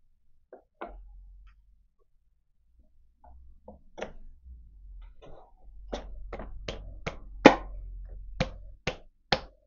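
A V-belt pulley being tapped by hand onto the keyed shaft of an electric motor: a few scattered knocks, then from about six seconds in a run of sharp knocks, two or three a second, as it is driven home to a tight fit.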